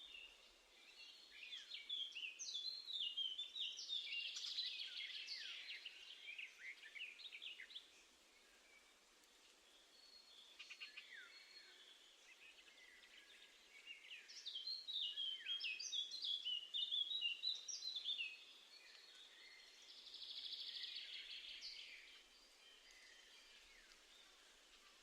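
Wild songbirds singing and calling in quick, high chirps and short falling sweeps, in two main bursts about two to eight seconds in and about fourteen to eighteen seconds in, with a rougher, hissy chatter around twenty seconds in.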